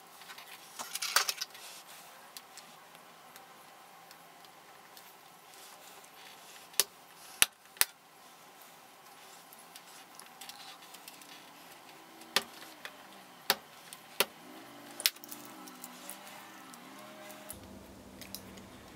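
Small hand tools and small plastic parts being handled on a hard floor: a brief clatter about a second in, then a handful of separate sharp clicks and taps over the next several seconds as a small plastic pin is picked apart with a hobby knife and pliers.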